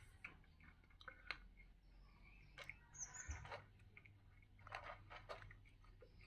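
A cat eating from a plastic bowl: faint, irregular chewing clicks in short clusters.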